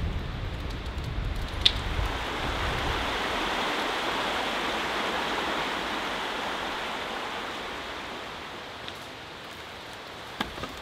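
Steady hiss of falling rain, with a low rumble under it for the first few seconds and a few scattered drop ticks, easing gradually towards the end.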